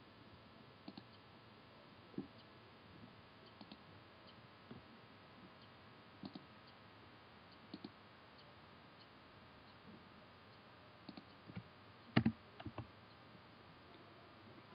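Faint computer mouse clicks, several in quick pairs like double-clicks, mixed with a few keyboard keystrokes; the loudest cluster comes about twelve seconds in.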